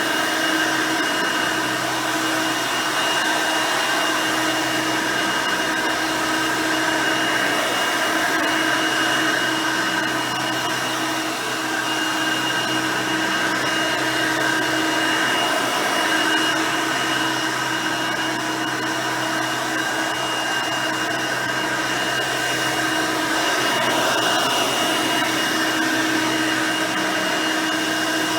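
Hoover Elite High Performance upright vacuum, with a 5-amp motor and nine-blade fan, running steadily while vacuuming, a constant motor hum with a steady high whine.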